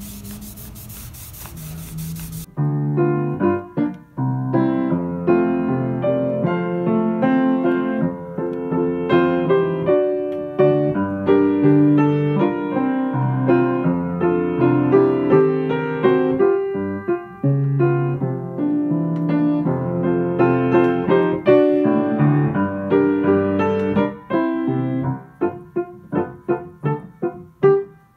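A rag rubbing wood stain onto a knotty alder frame for the first two seconds or so, then background piano music with struck notes over the rest.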